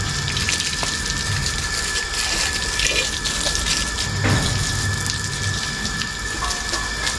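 Water jetting from a garden hose onto a motorcycle and the wet concrete under it: a steady spraying hiss with spatter.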